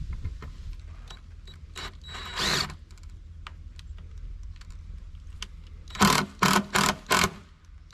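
Power driver run in short bursts: one brief run about two seconds in, then four quick bursts in a row near the end, over a steady low hum.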